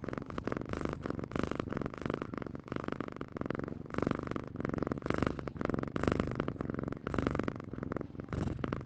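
Domestic cat purring steadily, a fast, rough pulsing that swells and eases about once a second with its breathing.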